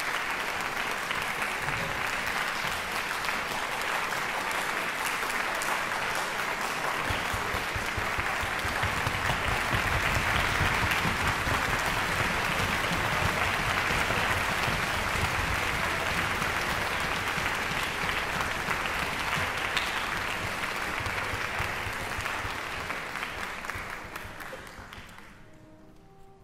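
Audience applauding, swelling in the middle and dying away near the end.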